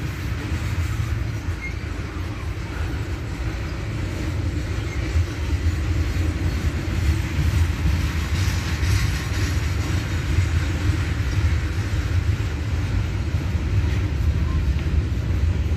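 Freight train's tank cars and covered hopper cars rolling slowly past, a steady rumble of steel wheels on rail that grows a little louder about five seconds in.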